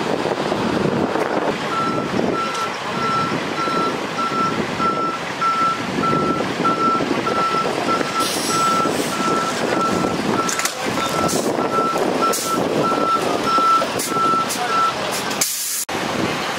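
A vehicle's reversing alarm beeping in a steady, even rhythm, about one and a half beeps a second for some thirteen seconds, over the running of idling engines and traffic. Near the end there is a short, sharp hiss of air.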